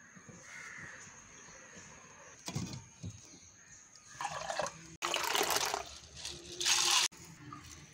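Liquid poured from steel bowls into a pot in three short, splashy pours, after a single knock about two and a half seconds in.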